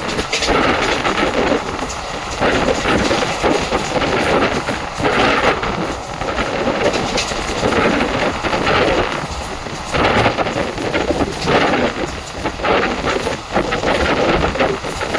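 ICF passenger coach of an Indian express train running at speed: a loud, continuous rumble with irregular clattering of wheels over the track and rushing air.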